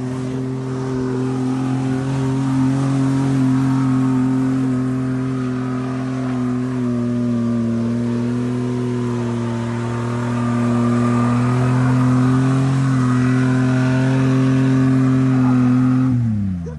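Pickup truck engine held at high, steady revs, then the revs drop away sharply near the end.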